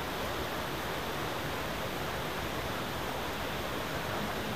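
Steady rush of a fast-flowing mountain river over rocks, an even hiss of white water with no breaks. The river is running high, which the couple put down to a floodgate opened upstream.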